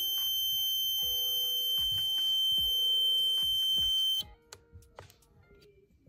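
Fire alarm control panel's built-in buzzer sounding one steady high-pitched tone, which cuts off abruptly about four seconds in as the panel resets. Background music plays under it.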